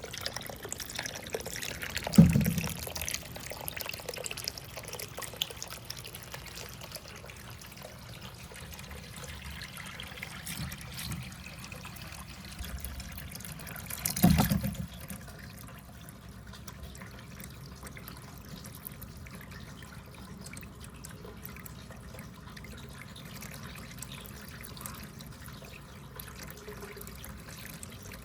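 Water trickling and flowing steadily through a water marble run track. Two loud knocks stand out, one about two seconds in and one about fourteen seconds in.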